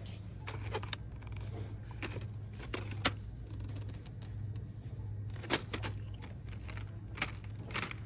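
Scattered clicks and crinkles of a cardboard-and-plastic blister pack being handled and lifted on its pegboard hook, over a steady low hum. The sharpest clicks come about three seconds in and about five and a half seconds in.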